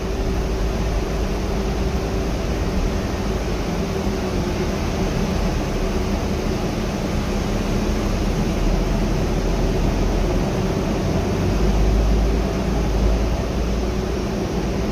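Cabin ride noise of a 2014 Gillig Trolley Replica 35-foot hybrid bus under way: a steady drivetrain hum with two held tones over road noise. The deep rumble swells briefly about twelve seconds in.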